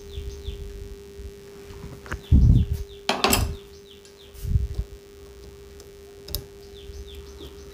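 Dull thumps and a brief scraping rustle of hands setting a screw into a plastic wall plug in a plaster wall, with a sharp click near the end. Small birds chirp in short falling notes in the background over a steady low hum.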